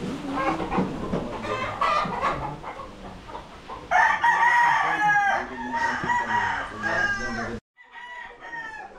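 Gamecocks crowing and clucking, with several calls overlapping and a loud crow starting about four seconds in. The sound drops out completely for a moment near the end.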